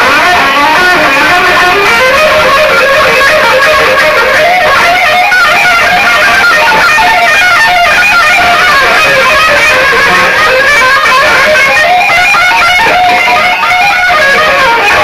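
Loud, steady music led by electric guitar.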